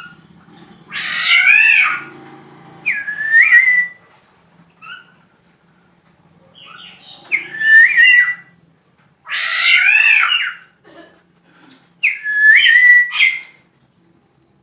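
Male black-naped oriole alternating two longer harsh calls with three short, clear whistled phrases, each whistle sliding up and then holding one note.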